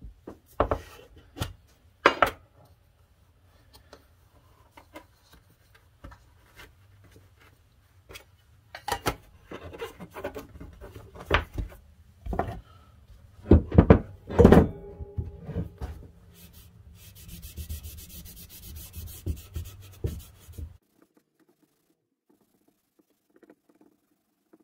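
Never Dull polishing wadding rubbed hard on the tarnished brass shaft of an old andiron, with repeated sharp knocks as the heavy cast andiron shifts and bumps on the wooden workbench. The knocks are the loudest part. All of it stops abruptly about three-quarters of the way in.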